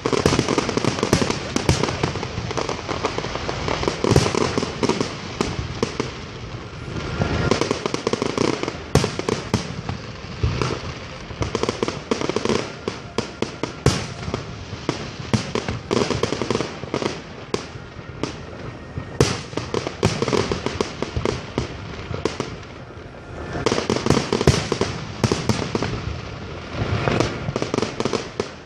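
Aerial fireworks display: a dense, continuous barrage of sharp shell bursts and crackling. It eases briefly twice, about two-thirds of the way through, then picks up again.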